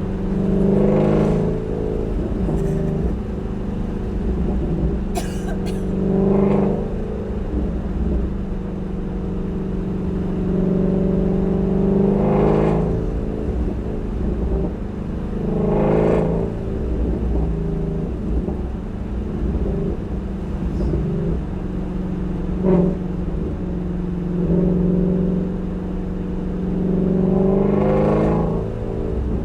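Ford Shelby GT350R's 5.2-litre flat-plane-crank V8 running under way, rising in pitch about five times as it accelerates and settling back to a steady drone between. There are a few sharp cracks from the exhaust; the loudest comes about two-thirds of the way through.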